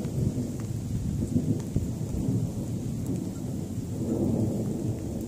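Thunder rumbling low and continuously, swelling about four seconds in, with rain falling.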